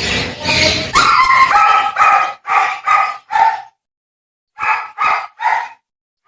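Small dog yapping: a quick run of about five high yips, a pause of about a second, then three more.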